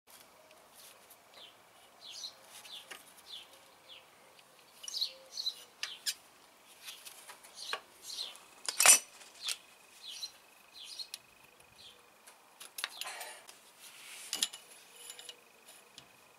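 Metal wrench clicking and clinking against the timing-belt tensioner pulley and its bolts in scattered taps and short scrapes, with one louder clink a little past halfway.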